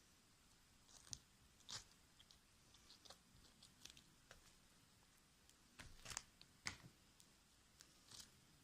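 Faint, irregular sticky crackles and pops of fluffy slime being squeezed and stretched by hand, with a few louder pops about two-thirds of the way through.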